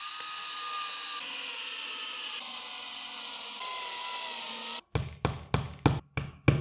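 Makita 18 V cordless drill-driver running steadily as it screws metal screw-in dowels into a chipboard drawer panel, its whine shifting pitch a few times. The drill stops near the end and a hammer starts tapping the panel at about three blows a second.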